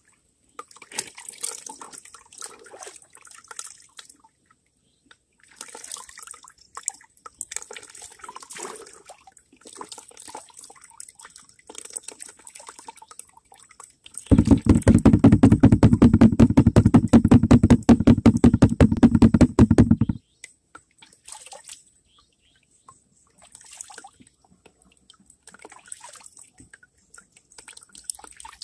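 Water swishing, splashing and dripping in a plastic gold pan as the gravel is washed down to gold-bearing concentrate. About halfway through, a loud, fast, even pulsing starts abruptly, lasts about six seconds and stops abruptly.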